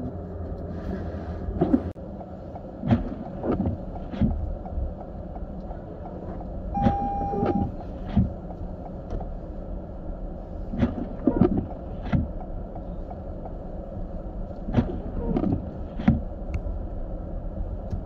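In-cabin sound of a car moving slowly on snow: a steady low rumble of engine and tyres, with small groups of short knocks about every four seconds and a short electronic beep about seven seconds in.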